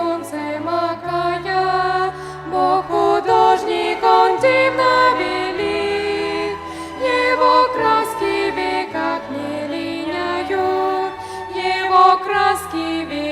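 Vocal ensemble singing a Christian worship song, accompanied by violins over long, steady low bass notes that change every second or two.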